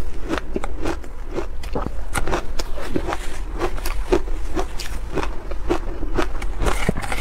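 Shaved ice coated in matcha powder being crunched and chewed: a dense, irregular crackle of bites and crunches, several a second.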